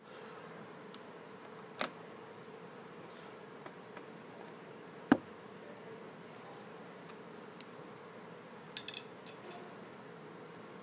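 A large multi-pin cable connector clicking and knocking as it is pushed into a controller box's robot connector socket and screwed down, over the box's steady hum. The loudest knock comes about five seconds in, and a quick rattle of clicks follows near the end.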